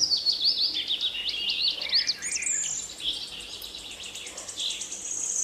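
Small birds chirping and twittering in quick runs of short, high notes, thinning out in the middle and picking up again near the end.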